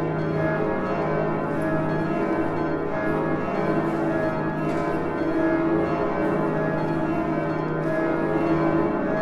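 Church bells ringing together, many bells sounding over one another in a continuous peal.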